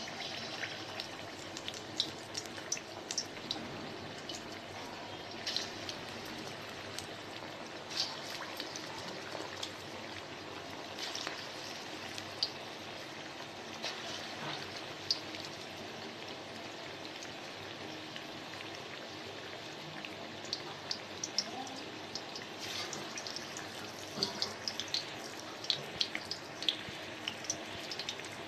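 Battered chicken pakoras deep-frying in hot oil: a steady sizzle with scattered sharp pops and crackles that come more often in the last several seconds.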